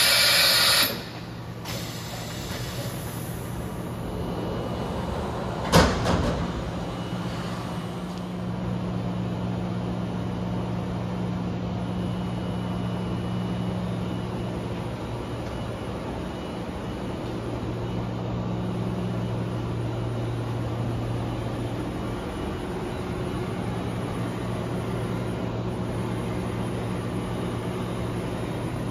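Johnford DMC-1500H vertical machining center running under power, a steady low machine hum. It opens with a loud short hiss, and there is a single sharp metallic clank about six seconds in.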